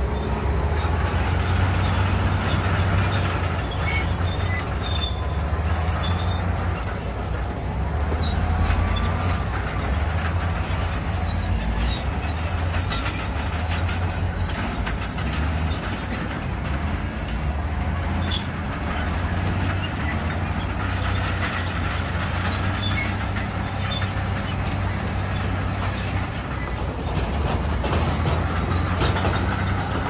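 Crawler bulldozer's diesel engine running and working, its rumble swelling and easing with load, with the clank of its steel tracks.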